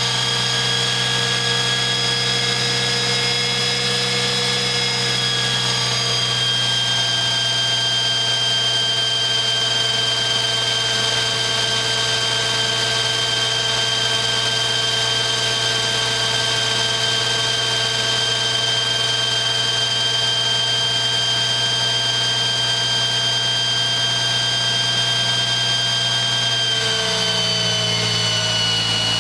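BMW R80 airhead's flat-twin engine running at a steady speed on a chassis dynamometer, its rear wheel driving the roller, with a steady high whine over the engine note. The pitch drops slightly about six seconds in and again near the end.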